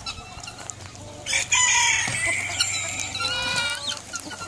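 A rooster crows once, a long call starting about a second in, with chickens clucking around it.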